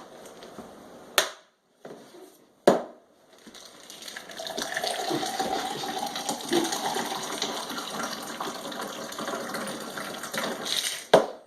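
Two sharp knocks, then liquid pouring steadily for about seven seconds.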